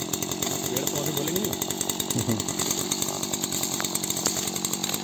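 Petrol pole pruner's engine running steadily at a constant speed.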